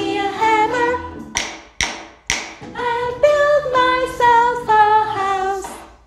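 A woman singing a children's song unaccompanied, with three sharp taps of wooden rhythm sticks about one and a half to two and a half seconds in, imitating hammering.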